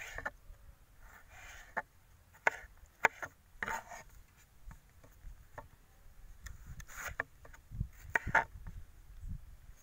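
Knife slicing tomatoes on a wooden cutting board: irregular sharp taps of the blade on the wood, with brief scraping cuts in between.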